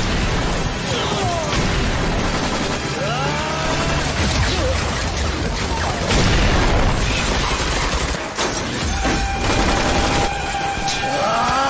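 Film battle soundtrack: dense automatic gunfire and explosions, loud throughout.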